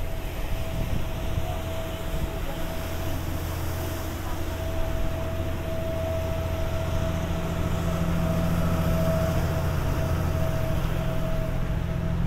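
Canal tour boat's engine running steadily with a low rumble and a steady hum above it. It grows louder from about seven seconds in as the boat passes directly beneath.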